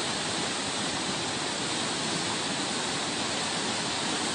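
Turbulent floodwater of a swollen river rushing in a steady, even wash of noise.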